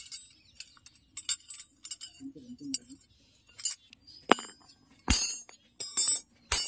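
Thin steel rods clinking against one another as they are handled, with a few sharper metal knocks, the loudest near the end, as rods are set down on the ground.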